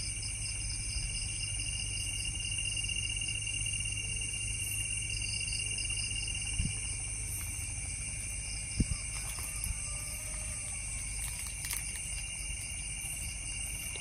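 Night insect chorus: several steady high trills at different pitches, with a pulsing chirp that comes and goes. A couple of soft knocks about six and nine seconds in.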